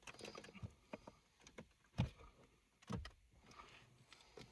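Plastic trim tool prying the plastic trim surround off a 2009 Ford Focus's dashboard radio: faint scattered clicks and scrapes, with two louder knocks about two and three seconds in.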